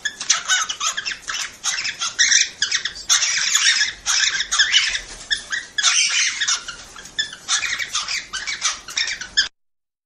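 Cockatiels chattering and chirping in a rapid, squeaky stream, the chatter of cockatiel mating calls. It cuts off suddenly near the end.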